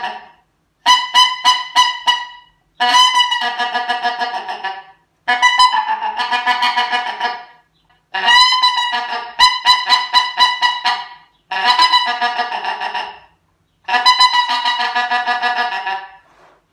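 Wooden reed goose call blown in about seven short runs of quick, clucking honks, each run starting loud and trailing off. This is the murmuring feeding chatter of geese on the ground, used once geese have come close.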